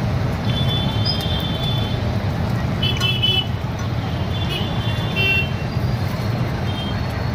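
Steady road traffic rumble from passing vehicles, with several short, high-pitched horn toots.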